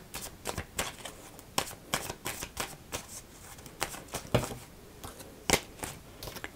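A deck of tarot cards being shuffled by hand: irregular soft flicks and slaps of cards, the sharpest slaps about four and a half and five and a half seconds in.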